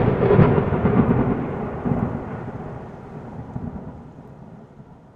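Intro sound effect: a sudden boom with a rumbling, thunder-like tail that fades away over about five seconds, with a smaller second hit about two seconds in.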